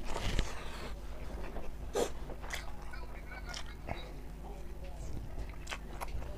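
Close-up mouth sounds of rice being chewed by hand-fed mouthfuls: wet chewing and lip-smacking with scattered sharp clicks. Near the end, fingers scrape and gather rice on the plate.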